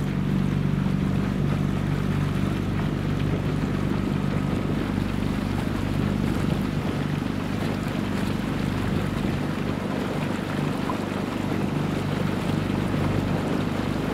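Motorboat engine running steadily under way, a constant low hum, with the rush of water and wind noise over it.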